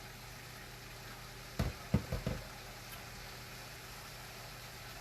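Chicken filling cooking quietly in a pot over a steady low hum, broken about a second and a half in by a quick run of about four knocks.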